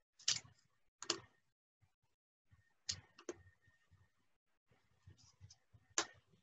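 Wooden craft sticks clicking as they are set down on a table and against one another: about five sharp, faint clicks at uneven intervals.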